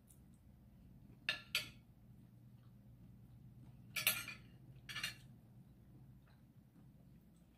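Metal spoon and fork clinking against a ceramic plate: two quick clinks about a second and a half in, then two more, the loudest, at about four and five seconds.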